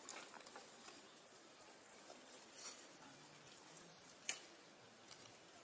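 Near silence: a faint steady hiss with a few soft clicks, the loudest about four seconds in.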